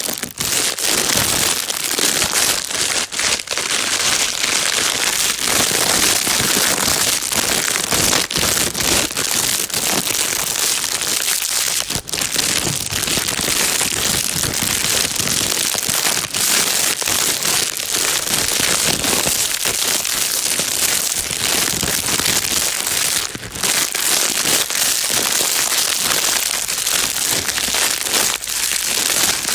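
Plastic bag crinkling and rustling continuously, a dense crackling hiss strongest in the high range, dotted with small sharp crackles and briefly easing a couple of times.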